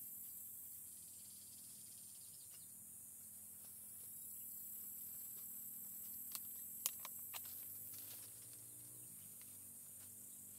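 Faint, steady high-pitched chorus of insects, with a few sharp light knocks close together about two-thirds of the way through.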